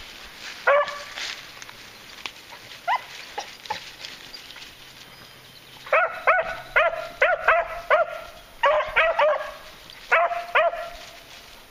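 Field-trial beagles barking on a rabbit's scent trail: one bark under a second in, a couple of faint yips around three seconds, then a run of about a dozen short barks in three quick bunches from about six seconds on. The barking is the hounds giving tongue as they work the track.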